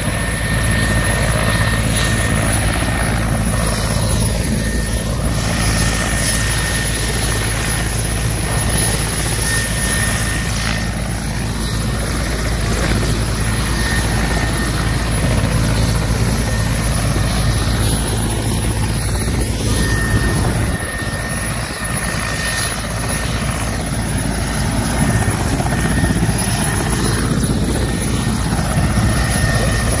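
Mil Mi-8-family twin-turbine helicopter running on the ground with its rotors turning: a steady low rotor drone under a high, even turbine whine.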